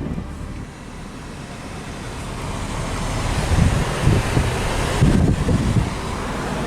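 Wind buffeting the microphone in gusts over steady vehicle road noise, growing louder after the first second.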